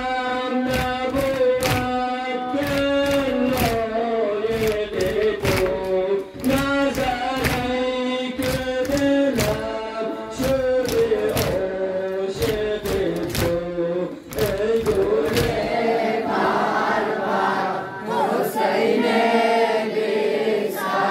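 Group of young men chanting a Muharram nauha in unison, with rhythmic chest-beating (matam) at about two strokes a second. About fifteen seconds in, the beating stops and the chant loosens into a mix of voices.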